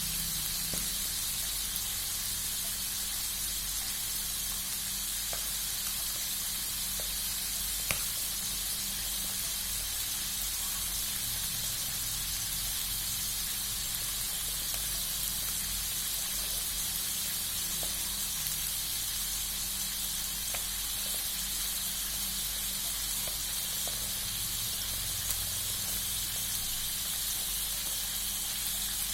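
Hot oil sizzling steadily as pieces of food fry in a pan, with scattered small pops, the sharpest about eight seconds in.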